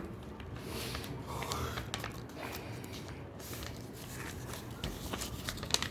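A sheet of paper being folded and pressed down into a crease, rustling with small crackles and clicks.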